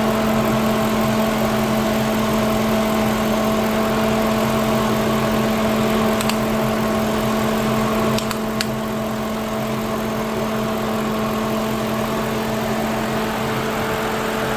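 Lincoln Town Car's 4.6-litre V8 idling with its new electric radiator cooling fan running, a steady hum. There are a few light clicks around six and eight seconds in, and the level eases slightly just after eight seconds. With the fan working again, the engine holds at normal temperature.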